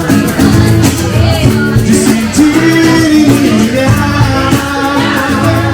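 Live band playing a Brazilian song, loud, with guitar and a steady beat.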